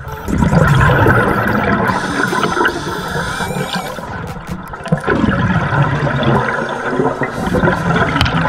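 A scuba diver's exhaled breath bubbling out of the regulator underwater: two loud surges of bubbling and gurgling, one starting just after the start and another about five seconds in.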